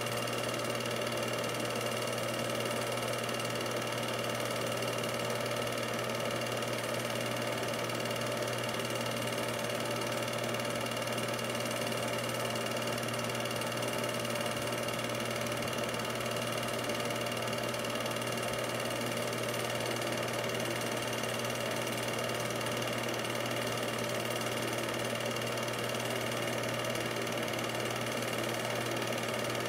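8mm film projector running: a steady mechanical whirr and hum that does not change, with no other sound on the track.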